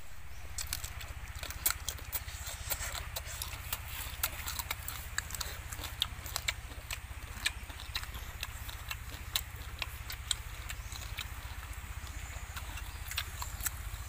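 Close-up eating of grilled sparrows: irregular crisp crunches and clicks as small bones are chewed, a few every second, over a steady low hum.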